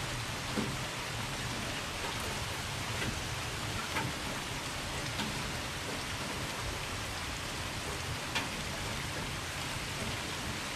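Steady rain falling in a thunderstorm, an even hiss, with a few louder drop hits close by now and then.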